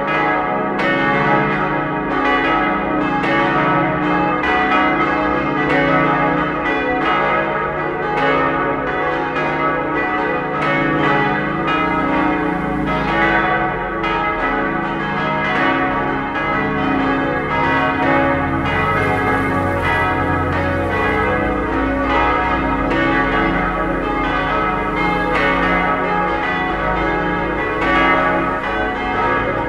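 Full peal of a five-bell church ring, the bronze bells tuned D♭, E♭, G♭, A♭ and B♭, swinging in the towers. Their strokes overlap continuously and hum on, with a low rumble underneath through the middle stretch.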